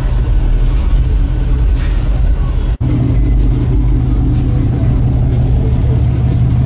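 Car engine running with a deep, steady rumble. The sound drops out for an instant a little under three seconds in.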